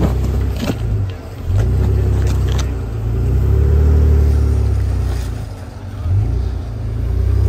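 Jeep Wrangler Rubicon engine revving up and easing off several times as it crawls over rocks, with a few sharp knocks in the first seconds.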